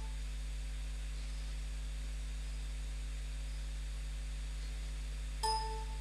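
Steady low electrical hum, with one short electronic beep near the end: the beep-test program's audio cue counting down to the next shuttle.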